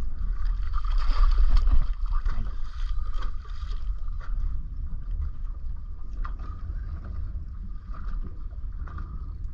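Wind buffeting the microphone on a small fishing boat, with water sloshing and splashing against the hull. The splashing is strongest in the first few seconds.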